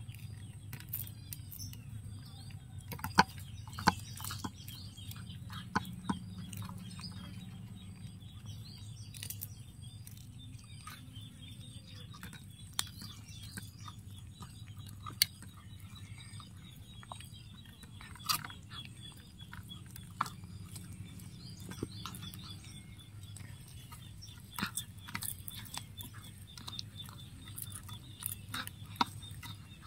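A cat chewing fried fish close up, with sharp, irregular crunches as it bites through the crisp skin and bones. Birds chirp throughout in the background.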